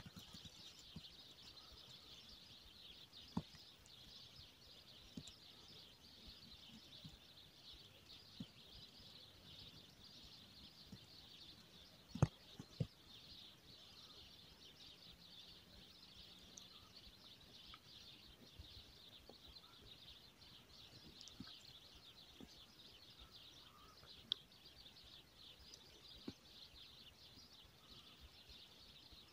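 Near silence: a faint steady hiss of quiet outdoor ambience, broken by a few short sharp clicks, the loudest a pair about twelve seconds in.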